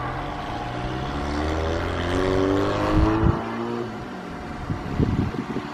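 Double-decker passenger train behind an EP20 electric locomotive running away through the station: a steady low rumble with a pitched whine that climbs and then falls around the middle, and a few sharp knocks about three and five seconds in.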